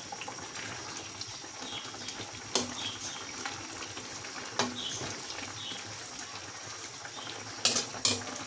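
Soup simmering in an aluminium wok while a ladle stirs it, knocking sharply against the pan four times: twice in the middle and twice near the end.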